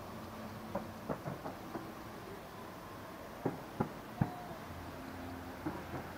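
Scattered sharp pops of fireworks, about ten in all, the loudest a few seconds in, over a steady background hum.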